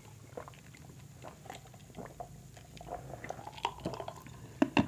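Close-miked chewing and wet mouth sounds of people eating a seafood boil by hand, with many small scattered clicks and a few sharper clicks near the end.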